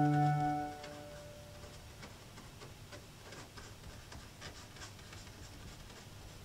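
A held organ chord fades out under a second in, followed by a quiet gap with faint, scattered light ticks.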